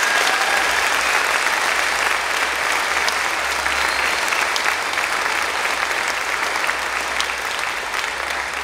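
An audience applauding steadily, easing off slightly near the end.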